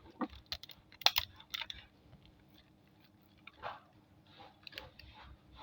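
Plastic packaging film being handled and peeled: a few sharp clicks and crinkles in the first couple of seconds, a quieter stretch, then softer crinkling toward the end.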